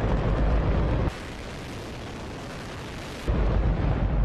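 Hydrogen-oxygen rocket engine test firing: a dense, continuous roar, heaviest in the low end. It drops to a quieter, thinner rumble from about one to three seconds in, then comes back at full strength.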